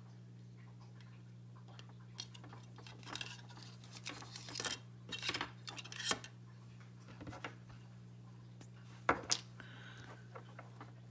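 Hands handling a small FPV quadcopter's wiring and connectors: scattered light clicks and rustles of plastic and wire, then two sharp clicks about nine seconds in, over a steady low hum.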